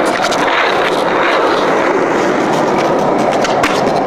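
Skateboard wheels rolling steadily over pavement, with a few sharp clicks along the way.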